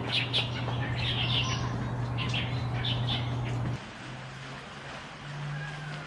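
Birds chirping in short, repeated calls over a steady low hum. About four seconds in, the sound drops suddenly and the chirping stops, leaving a quieter hum.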